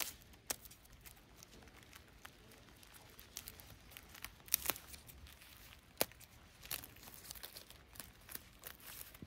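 Scissors snipping through plastic tape and the plastic wrap around an air-layer root ball, with the wrap crinkling and tearing: irregular sharp snips over a rustling of plastic.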